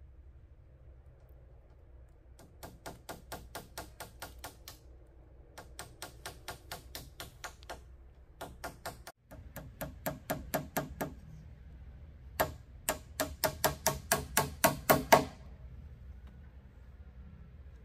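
Hammer striking the bamboo poles of a roof frame: four runs of quick blows, about five a second, with short pauses between, the last run the loudest.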